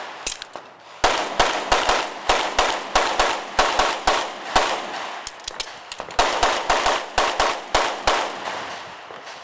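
Open-division race pistol firing a rapid string of shots, about two to three a second, each with a short echo. There is a brief pause a little past the middle, then a second fast burst that stops about a second before the end.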